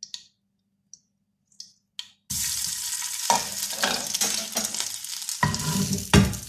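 Hot cooking oil sizzling in a frying pan, starting abruptly about two seconds in after a few faint clicks. A spatula knocks against the pan near the end.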